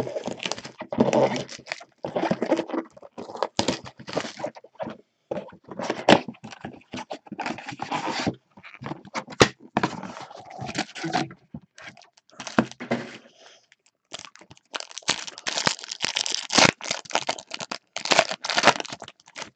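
Foil wrapper of a Topps Chrome trading-card pack crinkling and tearing as it is opened by gloved hands, with the cards inside handled and shuffled. Irregular rustling and crackling with many small clicks, pausing briefly about two thirds of the way through.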